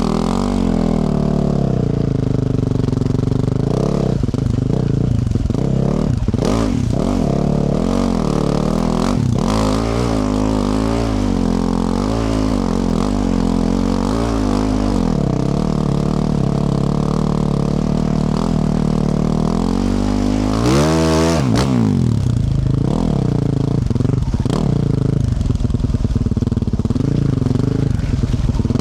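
Yamaha YZ450F's single-cylinder four-stroke engine running through a Yoshimura RS-12 exhaust, its revs rising and falling over and over as the throttle is worked, with a sharp rev up and back down about 21 seconds in. Occasional knocks and clatter sound in between.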